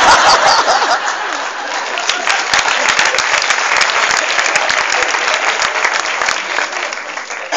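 Audience applauding, loudest in the first second, then steady clapping that dies away near the end.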